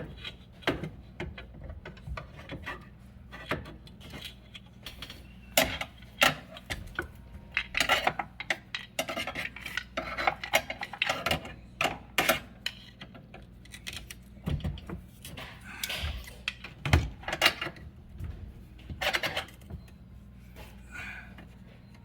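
Metal hand tools clinking, tapping and scraping against the dishwasher's metal frame and fittings while a stuck threaded part is worked loose: many short irregular clicks and knocks, busiest in the middle, with a few louder knocks later on.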